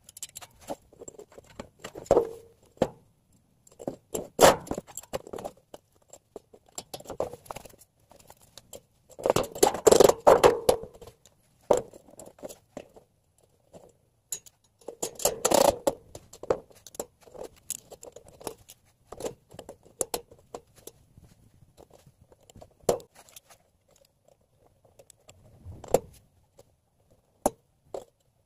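Sheet-metal vent grate rattling, clicking and scraping as it is handled and fitted over the vent opening, held with plastic cable ties. The loudest clattering comes about ten seconds in and again around fifteen seconds.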